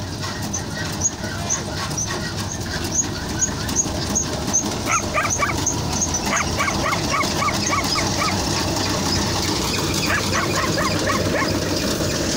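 Tractor-driven threshing machine running steadily, with a quick run of short, high-pitched sounds repeated a few times a second over the machine noise, most dense in the middle.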